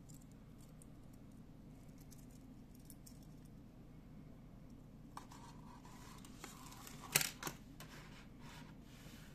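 Metal link bracelet of a gold-tone Casio digital watch clicking and clinking as it is handled and laid down on a wooden table: faint ticks at first, then light rustling with a few sharp clicks, the loudest a pair about seven seconds in.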